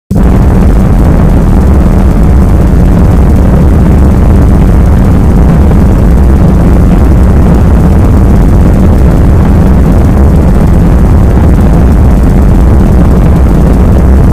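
Gorenoise (harsh noise music): a dense, unbroken wall of noise at full level that starts abruptly out of silence and holds steady, heaviest in the bass.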